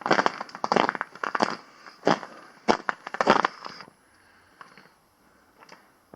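Footsteps of a hiker in microspikes crunching on an icy trail, a bit more than one step a second. The steps stop about four seconds in, leaving a few faint ticks.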